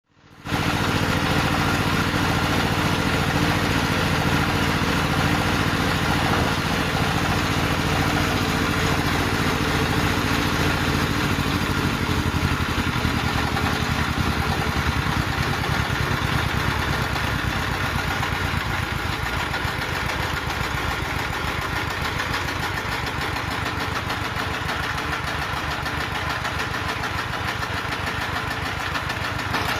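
Small diesel engine running with an unsteady idle, its speed rising and falling instead of holding. The sign, the uploader says, usually points to a fault in the injector nozzle and the governor.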